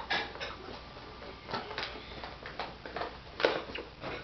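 Cardboard toy box being handled and pried at to get it open: scattered crinkles, scrapes and taps, the loudest about three and a half seconds in.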